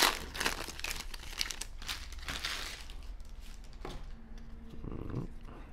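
Foil wrapper of a baseball card pack crinkling and tearing as it is ripped open, loudest in the first three seconds, then quieter.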